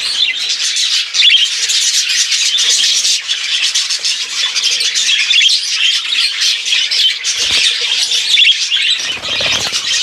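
Many budgerigars chattering at once, a dense unbroken mix of high chirps and warbles from a flock kept in cages.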